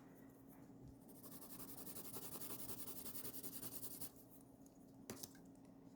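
Faint scribbling on paper with a colouring tool: quick back-and-forth strokes for about three seconds, then a single click.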